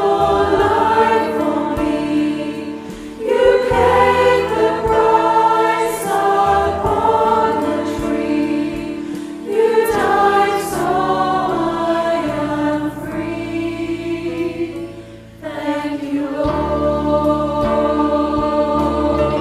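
A virtual choir of children and young people, each singer recorded separately and mixed together, singing a slow song over sustained low accompaniment notes. The singing comes in long phrases with brief breaths between them, about every five or six seconds.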